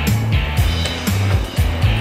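Background music with a heavy bass line and a steady thumping beat.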